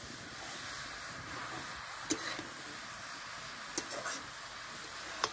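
Grated carrots frying in ghee in a metal kadai, with a steady sizzle. A metal spatula stirs them, with a few sharp knocks and scrapes against the pan.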